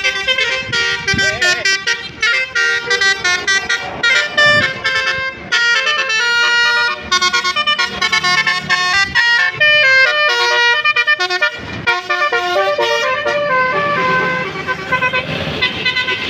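Bus 'telolet' basuri horn, a multi-trumpet musical air horn, playing a fast melody of short notes that jump in pitch one after another. Near the end a hiss rises under the notes.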